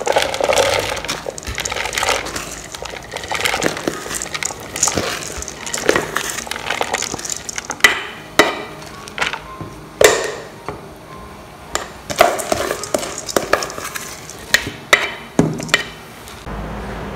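Soaked sticky rice and corn kernels being scraped out of a steel bowl into a steamer basket with a plastic spoon: grains sliding and spilling, with scattered sharp clicks and scrapes of the spoon against the metal bowl.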